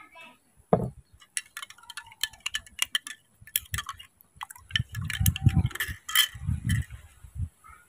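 A spoon stirring milk, clinking repeatedly against a glass with short ringing taps. A low thump comes just under a second in, and gusts of low rumble come through the second half.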